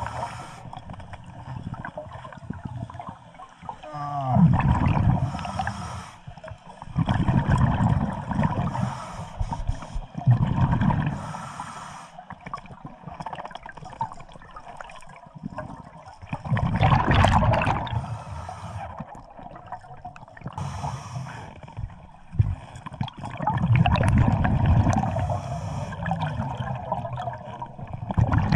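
Scuba diver breathing underwater through a regulator: a gurgling burst of exhaled bubbles every few seconds, with quieter spells between.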